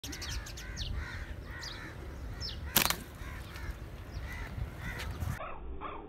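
Birds calling over and over in the tree, short repeated calls with a few quick falling whistles, over a low rumble of wind on the microphone. A single sharp snap stands out about three seconds in.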